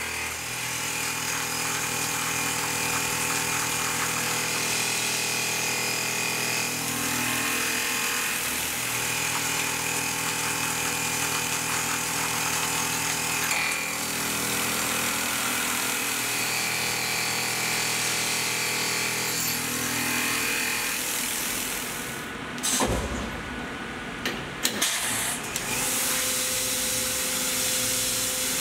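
Tormach 1100M CNC mill milling an aluminium block with an end mill: a steady whine of several tones that shifts every few seconds as the cut goes on. About three-quarters of the way in it breaks off with a few sharp clicks, and a different steady tone follows as a small tool cuts.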